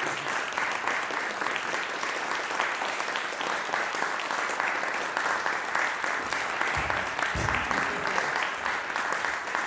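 Audience applause: many hands clapping in a dense, steady patter, with a couple of low bumps about seven seconds in.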